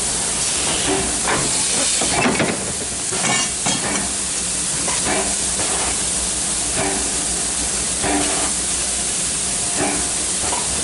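Steam locomotive standing with steam hissing steadily.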